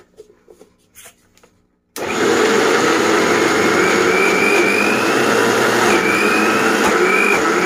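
Electric mixer grinder blending thick chickpea paste with a little water. A few faint handling knocks, then about two seconds in the motor starts suddenly and runs loud and steady with a high whine.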